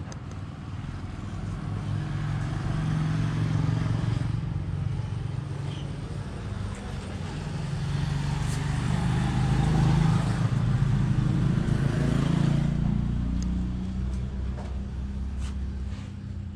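A motor vehicle's engine running, a steady low hum that swells louder twice and then eases off.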